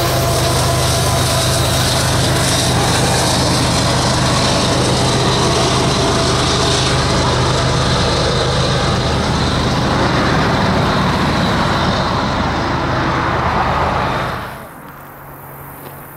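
A coal train's hopper cars rolling past at speed with a steady rumble and wheel noise, then the rear BNSF diesel locomotive's engine going by. About 14 seconds in the sound cuts off to a much quieter, distant background.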